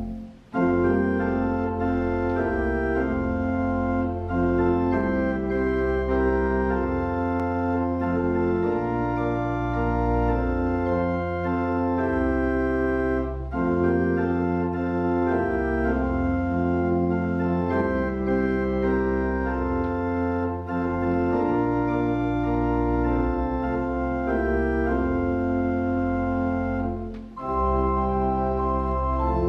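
Organ playing a slow piece of held chords over low bass notes, the chords changing every second or two, with a short break just after the start and another near the end.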